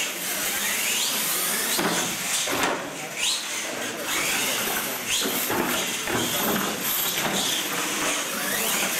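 Radio-controlled monster trucks racing on a concrete floor: their electric motors whine up in pitch several times as they accelerate, with sharp knocks from the trucks hitting ramps and landing.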